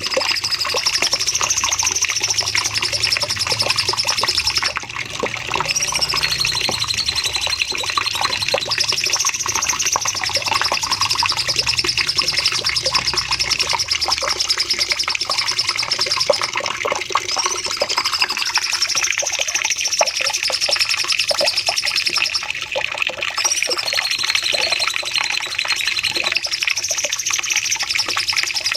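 Cucak cungkok singing long 'nembak' phrases. Each is a high, rapid, sustained trill lasting several seconds, opening with a short rising-and-falling note, and the phrases repeat every few seconds over a busy bed of lower chirps.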